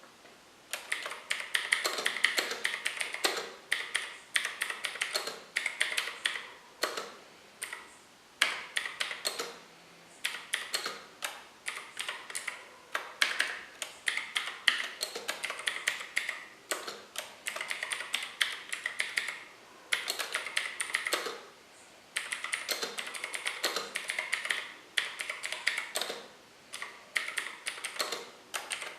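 A TVS Gold mechanical keyboard fitted with clicky Gateron Blue switches in a light all-plastic case being typed on continuously: rapid runs of sharp key clicks, broken by short pauses a few times.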